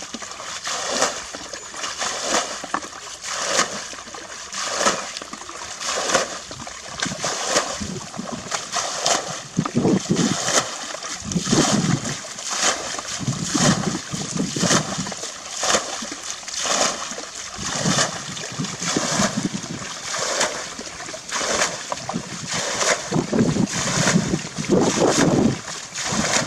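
Muddy ditch water being bailed with a plastic bucket: repeated scoops and splashes as each bucketful is thrown out, in a quick steady rhythm.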